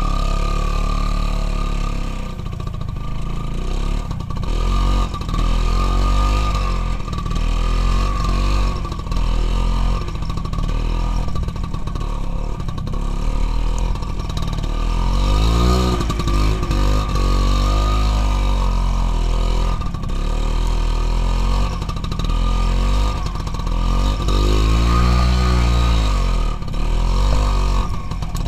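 Motorcycle engine running under load off-road, its revs rising and falling again and again as the throttle is worked, with sharp swells about halfway through and again near the end.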